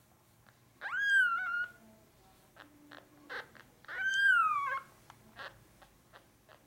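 A newborn Norwegian Forest Cat kitten, about five days old, gives two high-pitched mewing cries, each about a second long. The first rises and then holds its pitch; the second rises and then slides down. Faint clicks fall between the cries.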